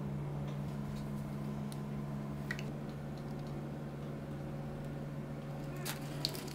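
A steady low hum, with a few faint light clicks and taps as olives and shredded cheese are dropped by hand onto a tortilla pizza.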